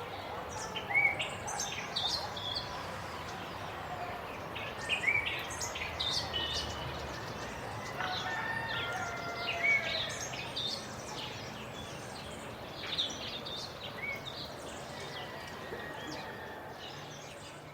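Zoo ambience: many birds chirping and calling over a steady background noise, with a few louder calls scattered throughout. It fades out near the end.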